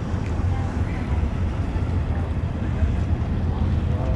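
Steady wind buffeting the microphone as a low rumble, over waves washing at the canal.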